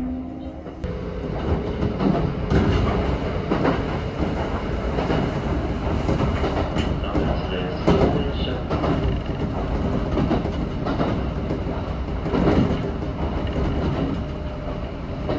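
Kintetsu electric commuter train running at speed, heard from inside the front car: a steady rumble of running noise with repeated clacks as the wheels pass over rail joints and points.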